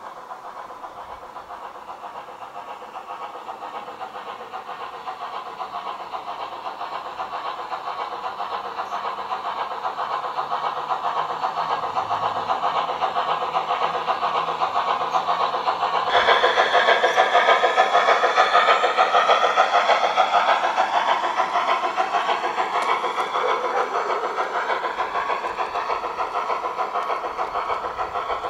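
Garden-railway model train running toward the station on its track, the running noise growing steadily louder as it approaches. About halfway through, the sound jumps abruptly louder, with several falling, whine-like tones over it.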